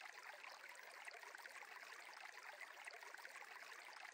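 Faint, steady sound of a flowing stream.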